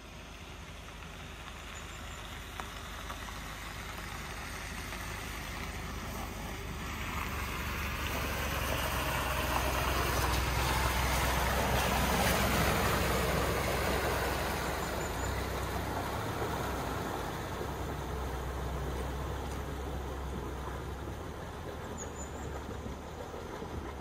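A four-wheel-drive vehicle's engine running steadily. A broad rush of noise builds to a peak about halfway through and then fades away.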